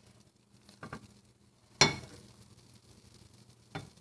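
Kitchen utensil knocking and clinking against a frying pan: a couple of light clicks about a second in, a sharp clink just under two seconds in that rings briefly, and another knock near the end, over a low steady hum.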